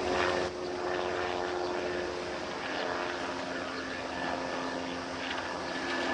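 Steady droning of a ship's diesel engine carrying across the water, holding several even tones over a hiss of wind and water, with a short louder rush of noise right at the start.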